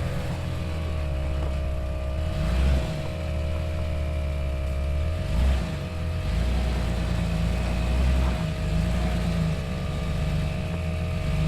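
Off-road vehicle engine running at low speed while rock-crawling, its low note swelling and easing every few seconds with the throttle.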